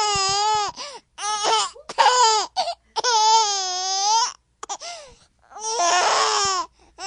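A baby's high-pitched voice in about six drawn-out squealing calls with short breaks between them, the longest a little over a second.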